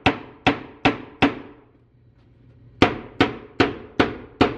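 Hammer blows knocking a board loose from a tongue-and-groove plank wall. Four quick strikes come first, then a pause of about a second and a half, then five more at roughly two or three a second. Each strike rings briefly in the echoing basement.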